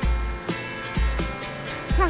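Background music with a steady deep bass beat about once a second.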